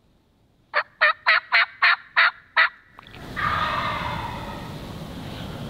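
Turkey yelping: a run of seven short, loud, evenly spaced notes, about three a second, followed by a longer, rougher call that trails off.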